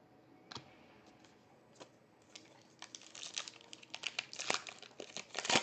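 A few light clicks, then a foil trading-card pack crinkling and tearing as it is opened by hand. The crinkling starts about halfway through and is loudest near the end.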